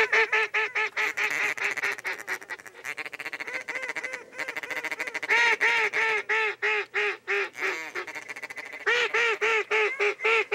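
A hand-blown duck call sounding quick runs of loud, nasal quacks to bring in an incoming flock of ducks. The runs come at the start, softer and faster a couple of seconds in, and loud again about halfway and near the end.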